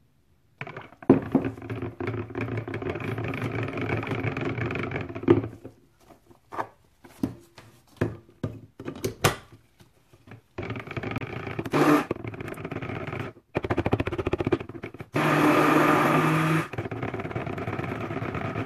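Electric stick blender whirring in cold process soap batter in a plastic pitcher, blending the oils and lye solution. It runs in bursts of a few seconds, with short knocks and clicks of the blender against the pitcher between runs, and its loudest run comes about 15 seconds in.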